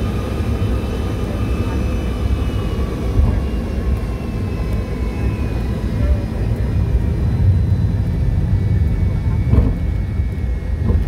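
Cabin noise of a Boeing 757 taxiing: a steady low rumble of the jet engines at taxi power and the rolling airframe, with a faint high engine whine that drifts slowly in pitch. A single short bump comes near the end.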